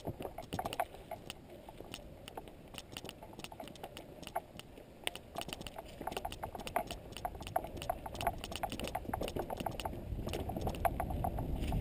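Mountain bike rolling along a dirt forest trail: irregular rattling and clicking over a low rumble of tyres and wind, which grows louder near the end as the speed picks up.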